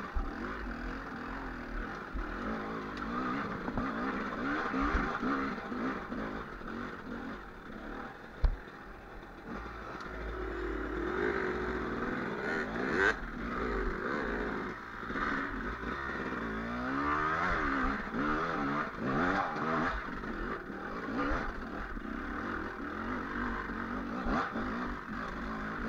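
Enduro dirt bike engine being ridden off-road, its revs rising and falling over and over, with clattering and one sharp knock about eight seconds in.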